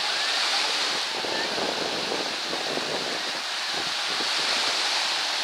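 Small lake waves breaking and washing steadily onto a sandy shore.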